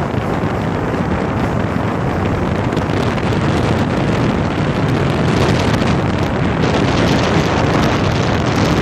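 Steady wind rushing over the microphone aboard a moving motorboat, growing a little louder and brighter about five seconds in.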